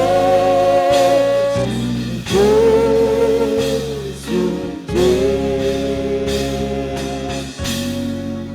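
Gospel worship song: a voice sings several long held phrases over a steady keyboard-and-bass accompaniment.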